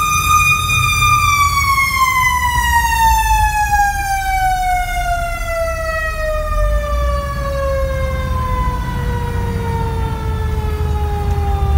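Fire engine's siren holds a high wail for about a second, then winds slowly down in pitch for the rest of the time. The truck's engine and road noise rumble underneath, heard from inside the cab.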